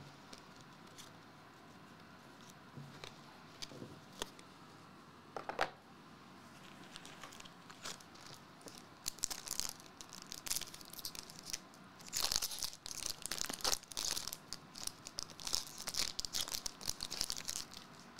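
Foil wrapper of a Marvel Eternals trading-card pack being torn open and crinkled, with dense crackling rustles through the second half, loudest a little past the middle. Before that, a few soft clicks of cards being handled.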